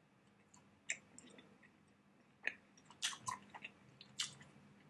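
A person chewing a mouthful of steak close to the microphone: faint, scattered wet mouth smacks and clicks, bunched together about three seconds in and again a little after four seconds.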